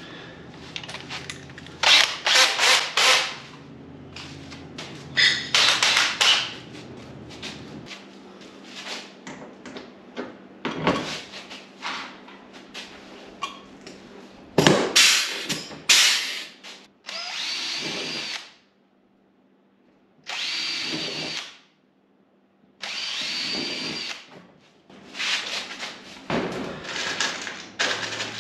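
Cordless drill running in short bursts of a second or so, drilling holes through the plastic race-car nose cover, with knocks and clicks of handling between the bursts.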